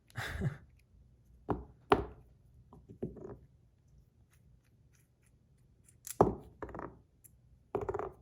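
Buttons being pulled off and pressed onto a metal bar fidget spinner by hand: a handful of separate sharp clicks, taps and short scrapes. They come in bunches, with a quiet gap in the middle, and the loudest click is about two seconds in.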